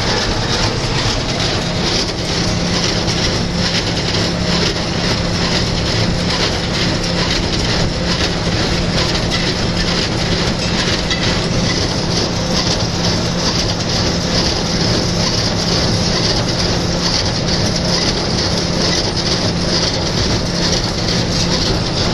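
John Deere 2140 tractor running steadily under load while driving a New Holland 268 small square baler, with a continuous engine drone and the baler's fast, regular mechanical clatter over it.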